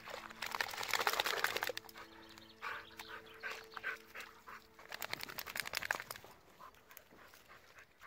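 A dog digging and rooting in wet mud with its paws and nose: scrabbling and snuffling in rapid scratchy runs, loudest between about half a second and two seconds in, then in shorter bursts that die down near the end.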